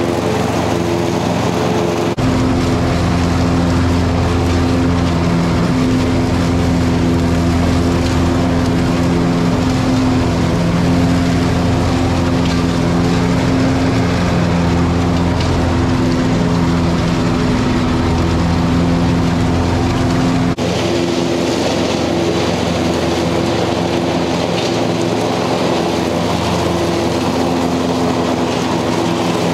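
Cub Cadet Ultima ZTX zero-turn mower's engine running steadily at mowing speed while cutting grass. About two seconds in the sound changes abruptly to a louder, deeper engine note, and about twenty seconds in it switches back.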